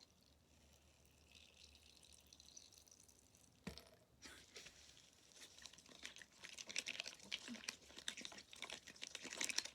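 Wet, sticky crackling and clicking of glue slime being stirred while it is only starting to form. It is faint at first, with a single knock nearly four seconds in, and grows busier and louder from about six seconds in.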